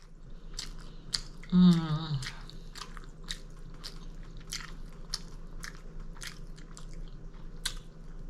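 Close-miked chewing of food, with many short wet mouth clicks and smacks. About a second and a half in comes a short hummed "mmm" that falls in pitch, the loudest sound.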